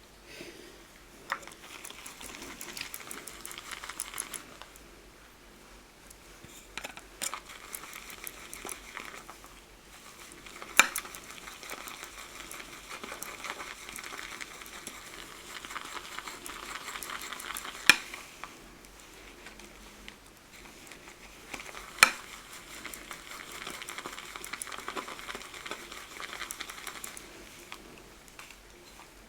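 Shaving brush swirling and whipping glycerin shaving soap into a lather in a bowl: a wet, crackly swishing in several stretches with short pauses. Four sharp knocks stand out, about one second in, near 11 and 18 seconds, and near 22 seconds.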